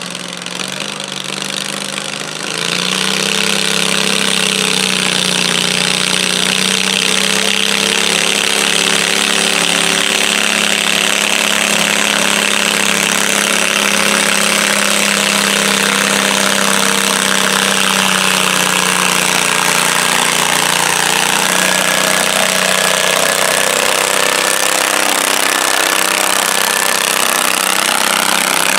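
John Deere garden tractor engine working under load, pulling a weight-transfer sled along a dirt track. It opens up about two and a half seconds in and then holds a steady pitch, dipping slightly near the end.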